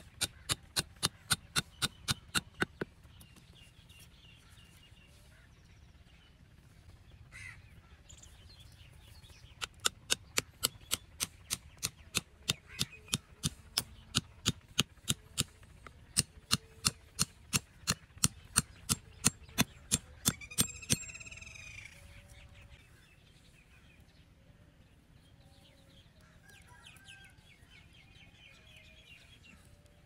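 Hammer tapping small wooden stakes into dry soil: quick, sharp knocks about three a second, a short run at the start and a longer run from about ten seconds in until about twenty-one seconds in.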